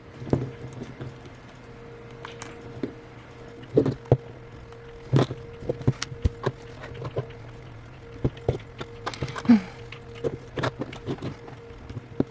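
Scattered small clicks and taps of prying tools working an iPhone 8's glued screen loose from its frame, over a steady low hum.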